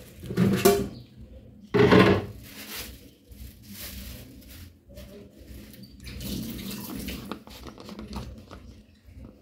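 Thin plastic food-prep glove being pulled off a hand and crumpled, two short bursts of crinkling rustle in the first two seconds, then faint handling noise.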